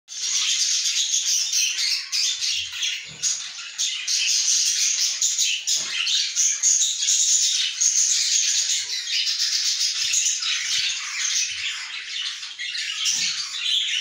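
Budgerigars chattering and chirping continuously in a dense, high-pitched stream, with a few soft low bumps from the birds moving in the nest box.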